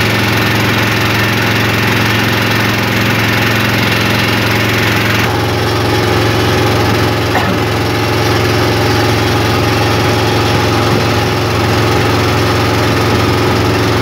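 Small wooden boat's engine running steadily under way, a constant low drone over water and wind noise; the sound shifts slightly about five seconds in.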